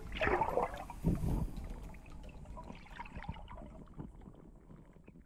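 Water splashing and gurgling, loudest in the first second or so, then fading away.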